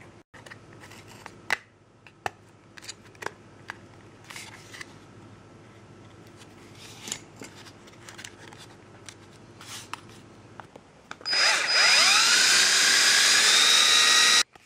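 Scattered light clicks and knocks of handling, then, about eleven seconds in, a small power tool runs loudly for about three seconds, its motor pitch settling after start-up, before it cuts off suddenly.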